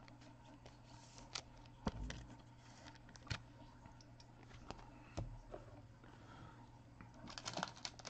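Faint handling noise from trading cards being picked up and sorted: scattered light clicks and taps, with a busier run of small clicks near the end, over a steady low electrical hum.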